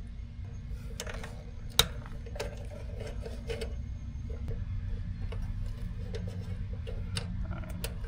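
Scattered light clicks and taps of hand work at an air conditioner's contactor, as wire spade connectors and tools are handled, with one sharper click a little under two seconds in. A steady low hum runs underneath.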